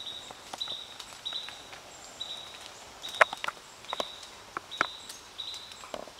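Quiet outdoor ambience: a short, high chirp repeats about every two-thirds of a second, with a few faint, sharp clicks scattered through.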